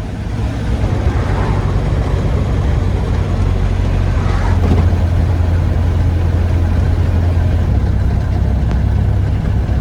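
A car driving at steady speed: a loud, even engine drone with road noise, growing slightly louder about halfway through.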